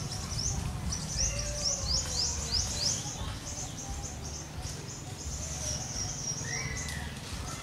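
A bird singing outdoors: a quick run of high, downward-slurred notes, about four a second, then a steadier high trill, over a low steady rumble.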